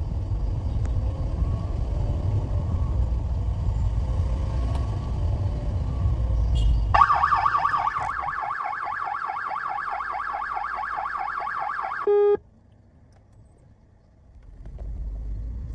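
Car engine and road rumble, then a loud electronic warbling alarm for about five seconds. The alarm ends in a short beep, the sound drops almost to nothing for a couple of seconds, and then the engine rumble returns.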